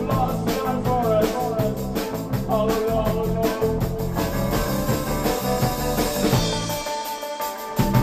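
Rock-style background music with a steady drum beat, bass and a melodic lead line; the bass drops out near the end.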